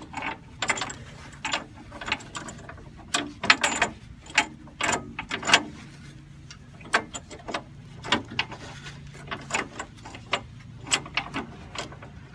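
Irregular metal clicks and clanks as the parts of a coil spring compressor are worked loose and pulled out of a car's front coil spring.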